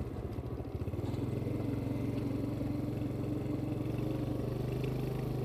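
Motorbike engine running steadily at low speed, heard from the rider's seat.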